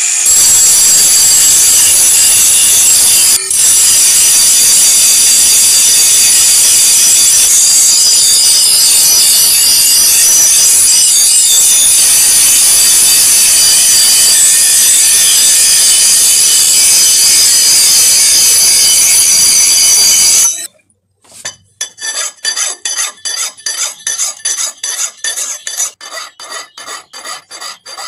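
Handheld angle grinder running with its disc grinding a steel axe head: a loud, steady, high-pitched whine with a brief dip about three seconds in, cut off abruptly about twenty seconds in. After a short pause a hand file rasps across the axe blade in quick, even strokes.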